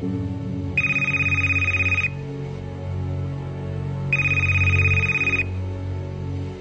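Telephone ringing twice with a fast electronic trill, each ring about a second and a half long with a pause of about two seconds between, over background music.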